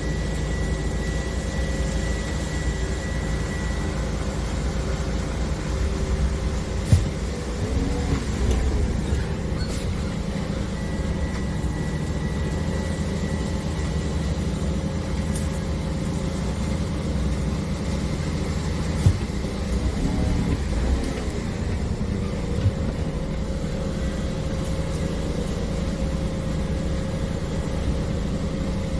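A vehicle running steadily with a constant low hum, broken by a sharp click about seven seconds in and again about nineteen seconds in.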